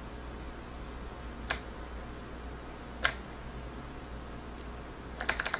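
Clicky Kailh low-profile Blue switches on a HAVIT mechanical keyboard. There are single keypresses about a second and a half apart, each a sharp click, and a fainter one later. Near the end a rapid string of presses starts, the plus/minus keys being tapped repeatedly to step the backlight brightness.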